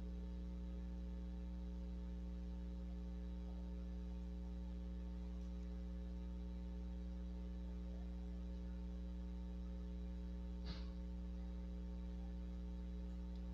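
Steady electrical mains hum, a stack of unchanging tones with no other activity, broken once by a brief click about eleven seconds in.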